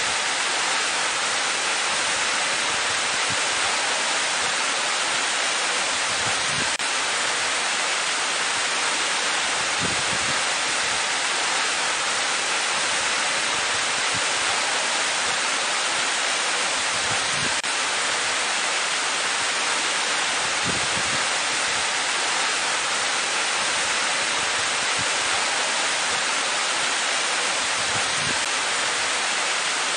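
Waterfall pouring steadily into a rock pool: a constant, even rush of falling water.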